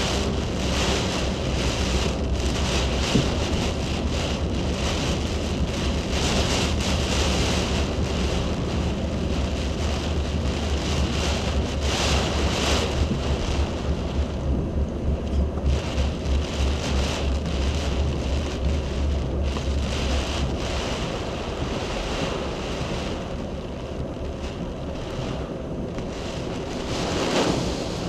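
Hurricane wind and hard driving rain, with gusts buffeting the microphone in uneven surges. A deep rumble underneath drops away about three-quarters of the way through.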